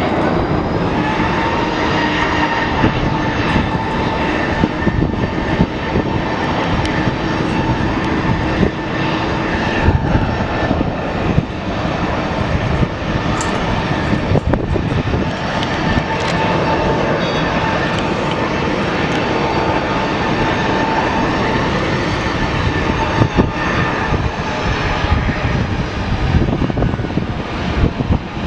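Boeing 747-400 freighter's four jet engines running loud and steady, a dense rumble with a high turbine whine over it.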